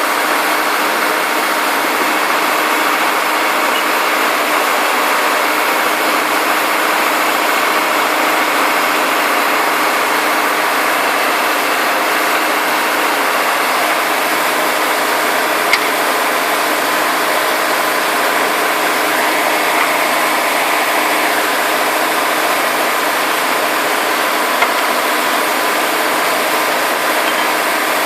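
Integrated DTH surface drill rig running steadily, its engine and machinery making a loud, unbroken mechanical noise, with two faint clicks partway through.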